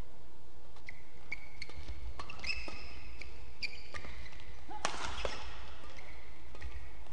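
Badminton doubles rally: a series of sharp racket hits on the shuttlecock, with short high squeaks of shoes on the court floor. The loudest hit comes a little under five seconds in.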